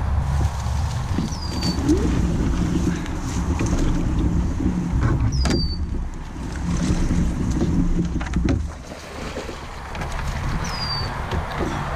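Wind buffeting the microphone on open water, easing a little near the end, with a bird's short falling whistle three times, about four to five seconds apart.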